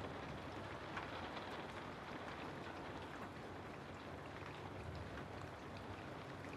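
Steady rain falling through forest trees, a soft even hiss with many small scattered drop ticks.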